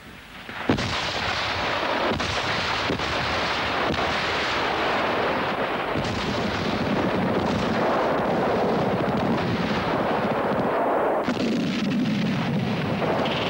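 Battle noise of gunfire and explosions: a sharp blast a little under a second in, then continuous rumbling with repeated sharp reports.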